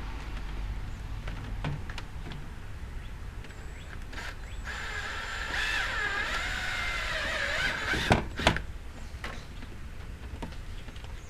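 Electric drill with a 1/4-inch bit running for about three seconds near the middle, its whine wavering in pitch as it bores through the plastic front fascia, followed by two sharp clicks.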